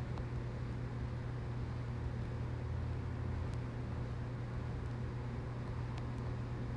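A steady low hum under a constant background hiss, with a few faint clicks.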